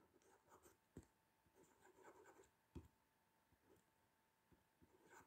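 Near silence, with faint scratching and two soft taps from a pen writing a word.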